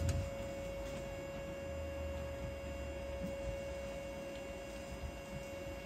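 Endovenous laser generator giving its steady single-pitched tone while the laser fiber fires inside the vein, fading out right at the end.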